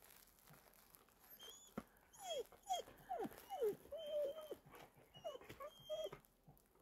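Dog whining: a string of short, high whines, most falling in pitch, starting about two seconds in.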